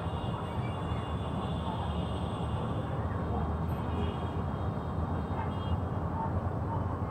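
Steady low mechanical drone of running machinery, even in level throughout, with a faint higher whine above it.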